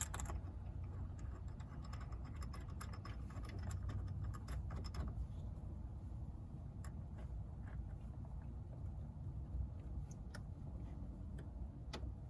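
Light metallic clicks and ticks of bolts being handled and threaded by hand into a steering-wheel hub adapter. The clicks come thick for the first few seconds, then scatter, over a low steady hum.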